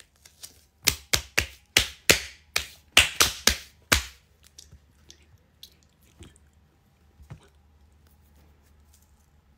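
Hands patting and pressing a strip of duct tape down onto a bare leg: a quick, uneven run of about a dozen sharp taps over three seconds, then a few faint ticks.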